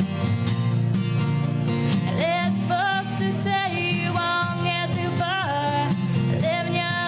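A woman singing a country song while strumming an acoustic guitar; the guitar plays alone at first and her voice comes in about two seconds in.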